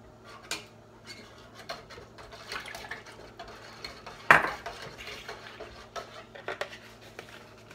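Kitchen utensils and dishes clinking and clattering in irregular small knocks, with one louder clank about four seconds in.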